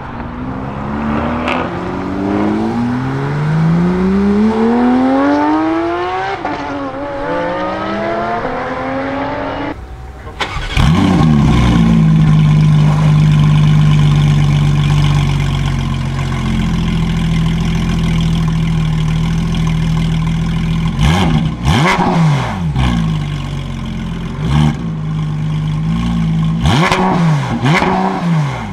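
A car accelerates away through several upshifts, its engine note climbing and dropping at each shift. Then a Porsche 992 GT3's naturally aspirated flat-six comes in loud at a high idle that settles lower after about five seconds, followed by a series of short throttle blips near the end.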